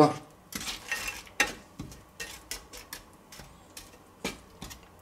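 Slotted spatula scraping and knocking against a frying pan as mushrooms are stirred and turned in fat, in irregular clicks and scrapes with a couple of louder knocks.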